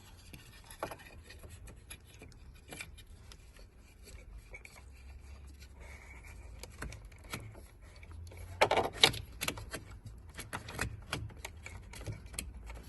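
Hand-fitting of a new ignition switch into a car's steering column: scattered small clicks, taps and rubbing of plastic and metal parts, with a quick run of louder clicks about nine seconds in.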